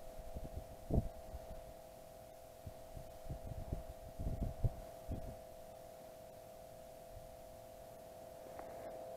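A steady two-note electronic hum, with scattered low, muffled thumps during the first half.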